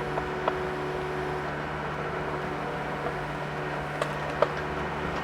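Mini excavator's diesel engine running steadily, with a few sharp clicks and knocks, the loudest about four and a half seconds in.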